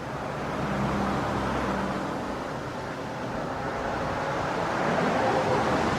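Two-lane road traffic at 40–50 mph: tyre noise and engine hum of cars passing by. The sound swells as one vehicle goes past about a second in and rises again as another approaches near the end.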